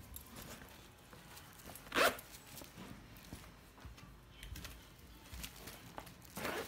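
Zipper on a Gucci GG Marmont velvet shoulder bag pulled in two short rasps, a sharp one about two seconds in and a longer one near the end, with light handling rustle of the bag between them.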